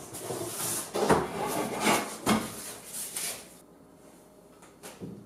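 A large poster board being handled and set up against the wall: several knocks and scraping sounds, which stop suddenly after about three and a half seconds. A few faint clicks follow near the end.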